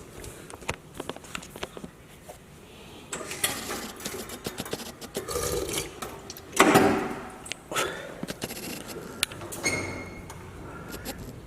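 Frogs calling from a courtyard pond: irregular bursts of rapid, clicking, rattling croaks, the loudest about two thirds of the way through.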